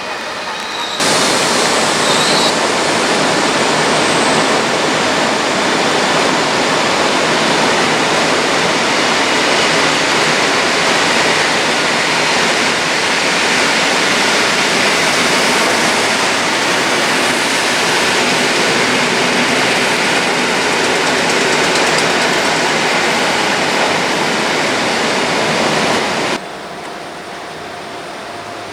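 Steady loud hiss of heavy rain, starting abruptly about a second in and cutting off abruptly near the end.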